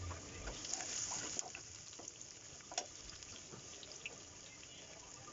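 Faint running and dripping water with scattered small clicks, a little louder for a moment about a second in.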